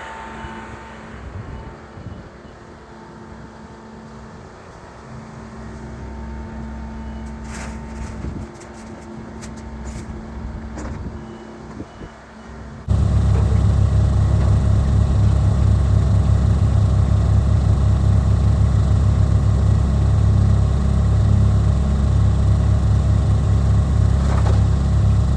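Engines of heavy work vehicles running: a moderate steady hum with a few clicks and rattles, then, about halfway through, a much louder, close, steady low engine sound.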